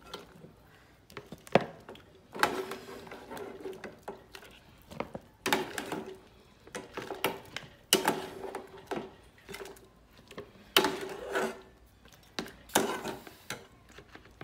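Pieces of boiled pork trotter dropped one at a time into a plastic bowl of water, a splash and knock about half a dozen times, a couple of seconds apart.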